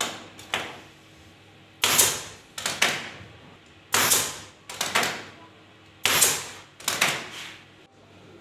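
Pneumatic upholstery staple gun firing staples to fasten fabric to a headboard panel: a series of sharp shots, often in quick pairs or threes about a second apart, each fading out quickly.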